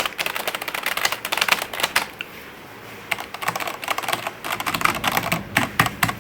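Fast typing on a computer keyboard: a quick run of key clicks, a short pause about two seconds in, then more typing.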